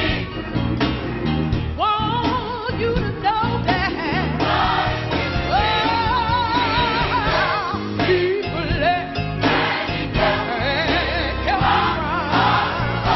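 Gospel music: singers with vibrato over a band accompaniment with a steady bass.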